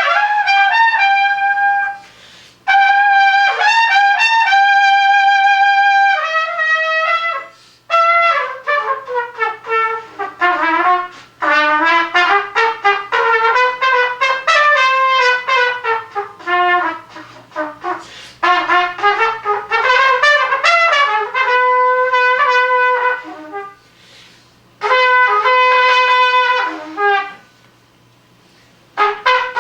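An unaccompanied solo on a single wind instrument, with a bright, brassy tone. It alternates long held notes, some with vibrato, with fast running phrases that sweep down and back up, and short breaths between phrases.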